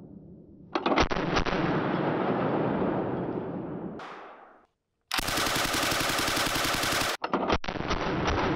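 Soviet DP-27 light machine gun firing full-automatic bursts of 7.62x54R, a rapid run of shots. The firing cuts out for a moment about halfway, then starts again and runs on.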